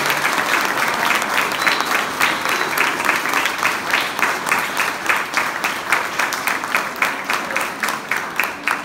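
Audience applauding: dense, steady clapping from many hands that grows sparser near the end, with separate claps standing out.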